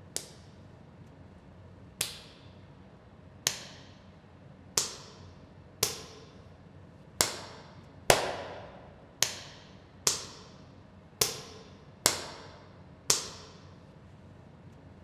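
A series of about twelve sharp cracks, irregularly spaced roughly a second apart, each ringing out with an echo tail. The loudest comes just past the middle.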